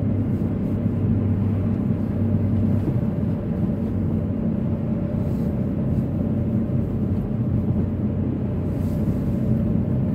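Steady engine and tyre noise heard inside the cabin of a car driving along a road: an even low hum with a steady drone.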